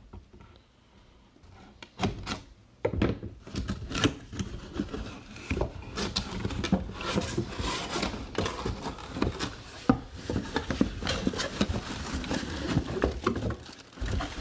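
Cardboard packaging being handled by hand: a helmet box's flaps opened and a boxed, plastic-wrapped helmet slid out, with scraping, knocking and crinkling. It starts about two seconds in and goes on busily from there.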